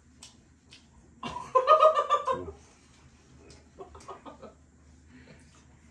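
A person laughing in a rapid run of short, cackling bursts about a second in, followed by a shorter, softer laugh around four seconds.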